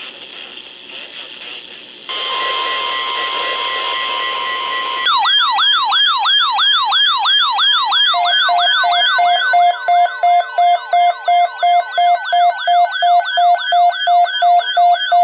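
Weather radio emergency alert: radio static hiss, then a steady alert tone about two seconds in, then a fast rising-and-falling siren from about five seconds, joined by a beeping tone pulsing about twice a second. It announces an alert, here a severe thunderstorm watch.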